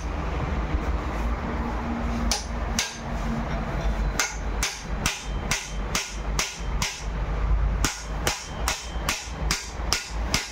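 A low rumble, then from about four seconds in a run of sharp, evenly spaced knocks, about three a second.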